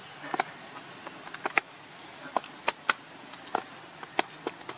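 Irregular sharp, wet clicks and smacks from a baby macaque suckling at its mother's teat, several a second, over a faint steady hiss.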